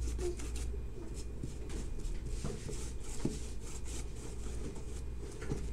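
Paintbrush strokes on a cardboard box, a soft scratchy brushing, over a steady low hum.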